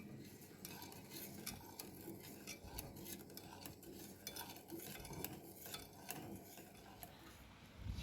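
Metal utensil stirring in a bowl: faint, irregular light clinks, a few a second.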